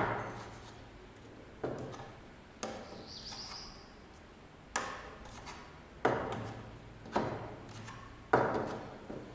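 About six sharp metallic knocks, each ringing briefly and spaced irregularly, from work on a pit bike's steering head while the steering-stem bearing adjustment is set. A short high squeak or ping comes about three seconds in.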